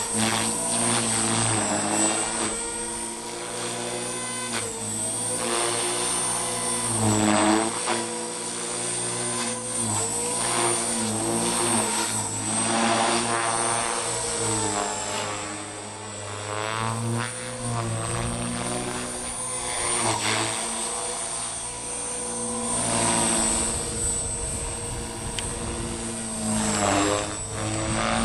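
Electric RC helicopter (Align T-Rex 450 SE with a Scorpion motor and Edge rotor blades) in flight: the rotor whir and a high motor whine rise and fall in pitch again and again as it is flown through manoeuvres.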